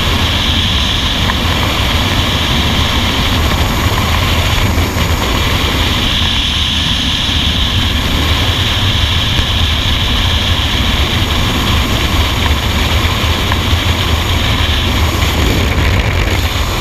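Loud, steady rush of freefall wind buffeting a helmet-mounted camera microphone during a skydive.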